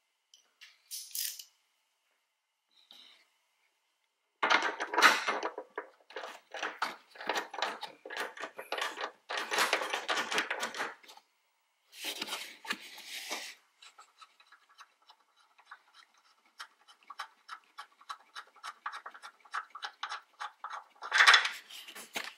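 Hand socket ratchet clicking in runs of quick, even ticks as a hood hinge bolt is backed out, with a louder burst of clatter near the end.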